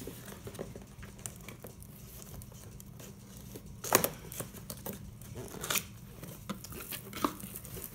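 Cardboard retail box being handled and opened by hand: rustling and scraping of the box flaps, with a few sharp clicks, the loudest about four seconds in.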